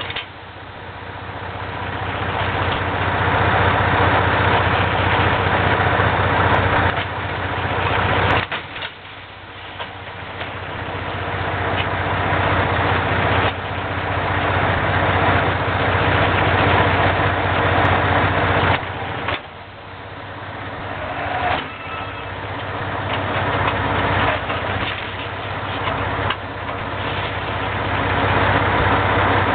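Farm tractor engine running in a hay field, the level building up over several seconds as it draws near and then dropping abruptly, several times over.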